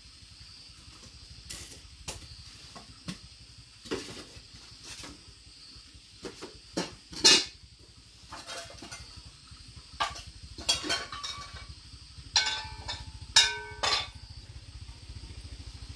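Metal pots and utensils being handled and knocked together, making irregular clanks and clinks. The last few strikes ring briefly with a metallic tone.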